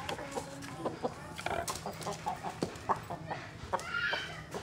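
Chickens clucking with short, scattered calls, mixed with light clicks and knocks of plastic being handled.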